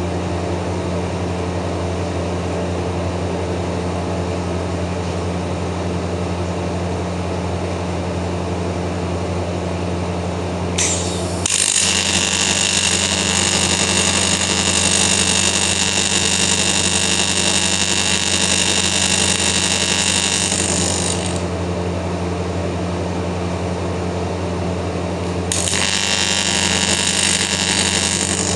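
AC TIG welding arc on a cracked cast aluminium starter motor end case, from a Hobart Beta-Wave BW 320 welder. The arc is struck about eleven seconds in with a brief crackle, buzzes steadily for about ten seconds, stops, and is struck again about three seconds before the end. A steady low hum lies underneath.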